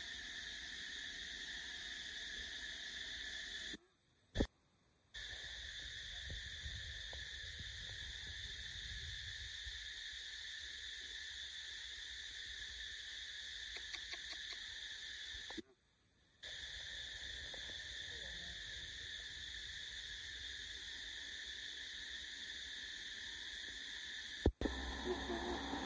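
Steady insect chorus, a continuous high drone of several held tones. It cuts out briefly twice, and a sharp click comes near the end.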